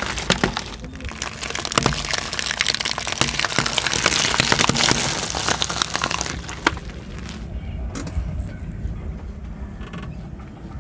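A car tyre rolling over brittle objects and crushing them: a dense run of cracks and crunches for about six seconds, thinning to a few scattered cracks.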